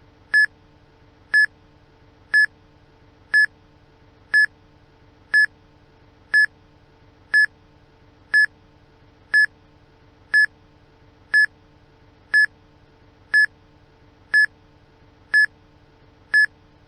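Electronic countdown-timer beep sounding once a second: short, identical high-pitched beeps, evenly spaced, over a faint steady hum.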